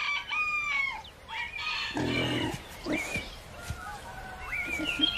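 Farmyard chickens clucking and calling: a string of short squawks that bend up and down in pitch, with a few lower, rougher calls among them.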